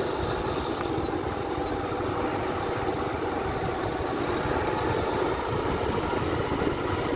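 Motorcycle engine running steadily, with wind rumbling on the microphone.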